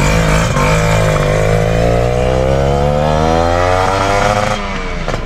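Kawasaki RR150's two-stroke single-cylinder engine revving: its pitch climbs steadily for about three and a half seconds, then drops sharply near the end before rising again.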